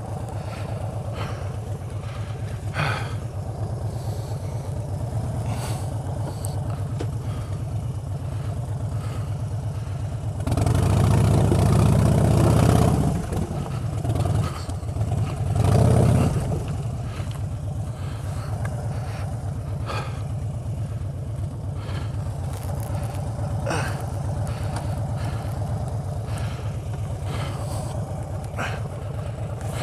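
Harley-Davidson Street Bob's V-twin engine running at low speed on a loose stony track, with a longer louder throttle opening about a third of the way in and a shorter one about halfway through. Scattered clicks and knocks sound over the engine.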